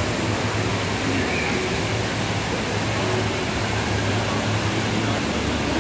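Steady rushing roar of falling water from the Rain Vortex, the tall indoor waterfall at Jewel Changi Airport.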